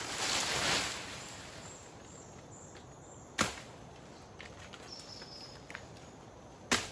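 Chopping with a blade: two sharp strikes about three and a half seconds apart, after a brief swishing rustle in the first second.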